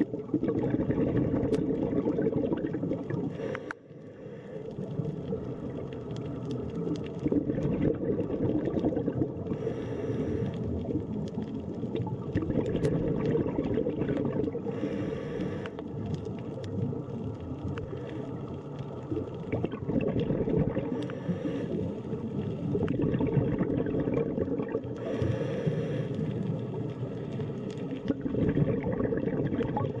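Underwater sound of scuba diving: a steady bubbling rumble from divers' exhaled air. About every five seconds there is a short hiss of breath drawn through a regulator.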